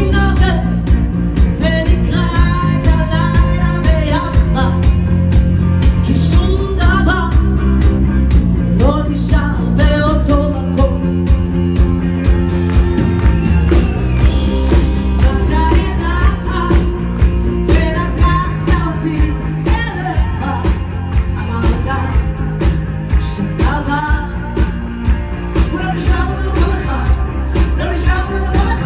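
Live rock band playing a song with a steady drum beat, a woman singing over it.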